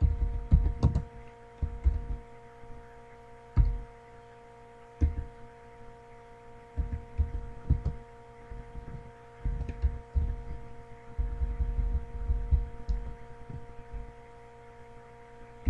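Computer keyboard keystrokes picked up as dull, low thumps in irregular clusters, over a steady electrical hum.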